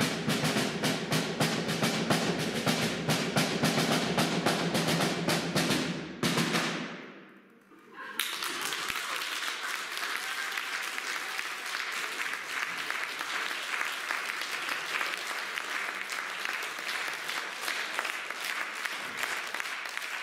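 Fast, dense drumming over low sustained tones ends about six seconds in and rings away; after a short hush an audience applauds steadily.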